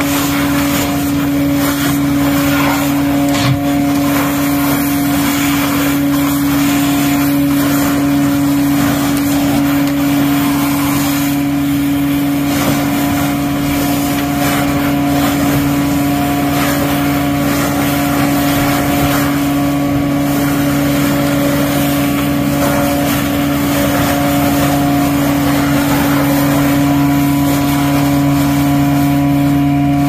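Vac-Tron vacuum excavator running steadily, its hose sucking water and mud out of a catch basin. The sound is a loud, constant mechanical hum under an even rushing suction noise.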